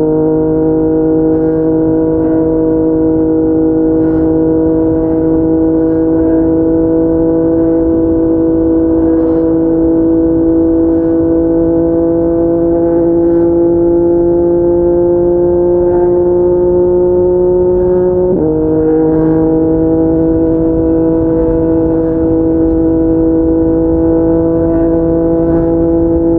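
Yamaha MT-09's inline three-cylinder engine pulling steadily under load at highway speed, its pitch climbing slowly. About 18 seconds in the pitch drops sharply on an upshift, then begins climbing again.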